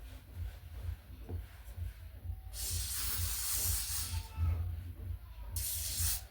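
Aerosol hair spray sprayed twice: a long hissing burst of about a second and a half, then a shorter one of about half a second near the end.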